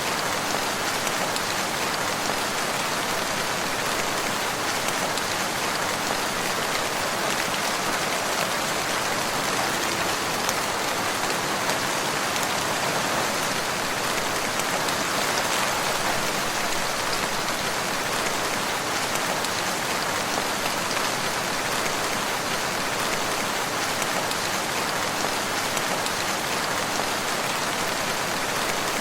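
Steady rain falling, an even, unbroken hiss of drops with no change in strength.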